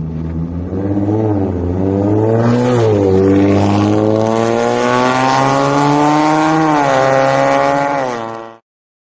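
Audi RS 7's twin-turbo V8 with an Armytrix valved exhaust, accelerating hard away. The revs drop at a gear change about three seconds in, then climb steadily and fall again near the end before the sound cuts off suddenly.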